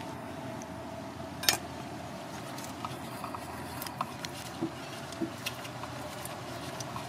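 A pestle grinding wet peanut sauce in a ceramic plate: one sharp knock about one and a half seconds in, then light scattered taps and scrapes, over a steady background hum.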